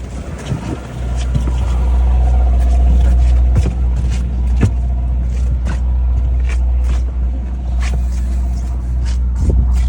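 Sportfishing boat's engine running, coming up sharply in power about a second in and then holding a steady low rumble, with scattered clicks and knocks on deck.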